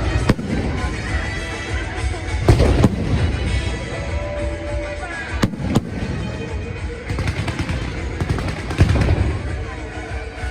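Fireworks going off: sharp bangs and crackling, with single loud reports about a second in, near three seconds, two in quick succession midway and one more near the end, over a constant background din.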